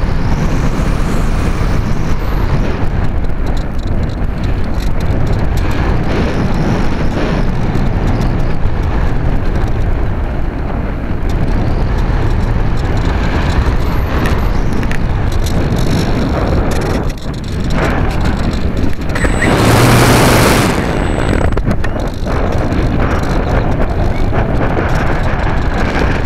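Airflow rushing over the onboard camera of a Radian powered glider in low flight: a steady noisy rush with a heavy low rumble. About twenty seconds in, a louder, brighter rush swells for a second or so, then settles back.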